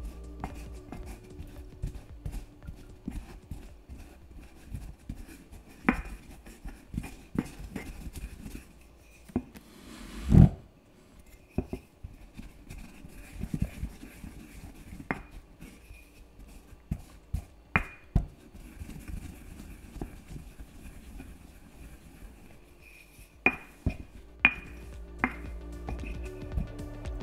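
Kitchen ware being handled: scattered knocks and short ringing clinks of hard dishes and utensils, with one much louder heavy thud about ten seconds in. Background music fades out at the start and returns near the end.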